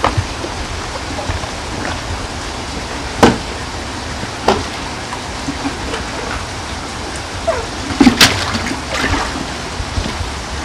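Water splashing and sloshing in a portable fish tank as koi are netted and a plastic tub is dipped into the water: sharp splashes about three seconds in and again at four and a half, and a louder cluster around eight seconds. A steady rush of running water goes on underneath.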